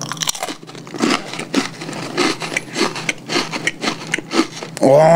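Close-up biting and chewing of a thin, crisp Oreo Thins Tiramisu sandwich cookie, with irregular sharp crunches a few times a second. A man starts talking near the end.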